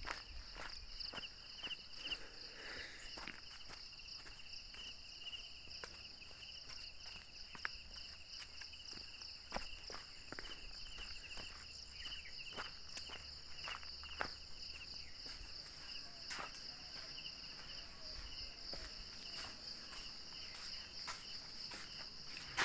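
A steady, high-pitched, pulsing insect chorus, with irregular footsteps of someone walking on a dirt path.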